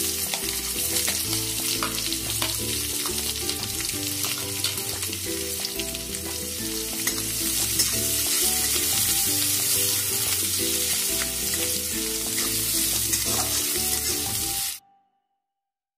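Chopped onion sizzling as it fries in hot oil in a metal kadai, stirred with a spatula that scrapes and clicks against the pan. The sound cuts off suddenly near the end.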